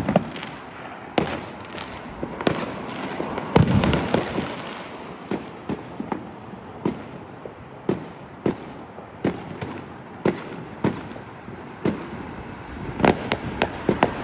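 Fireworks going off: sharp bangs at irregular intervals over a steady background crackle and rumble, with a louder, denser burst about four seconds in and another quick flurry of bangs near the end.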